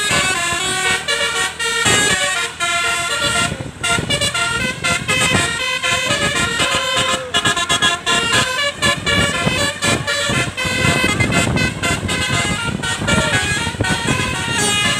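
Tour bus's basuri musical horn (telolet) playing a tune, its notes stepping up and down one after another, over a low rumble.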